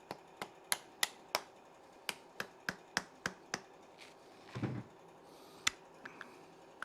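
A ratchet wrench clicking in a quick run of sharp clicks, about three a second, as nuts on the connecting rods of an Allis-Chalmers C engine are run down. After a dull knock, a single click follows near the end.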